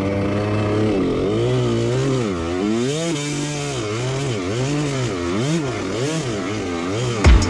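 Two-stroke engine of a 65cc Husqvarna dirt bike running hard, steady at first and then rising and falling in pitch about twice a second as the throttle is rolled on and off. A heavy thump comes just before the end.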